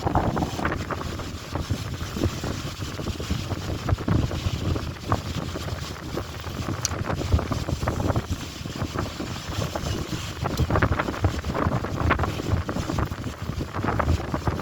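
Strong wind buffeting the microphone in gusts: a rumbling, fluctuating roar with no clear pitch.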